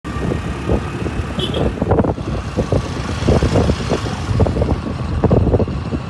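A motorbike on the move, with its running and road noise under heavy, uneven wind buffeting on the microphone.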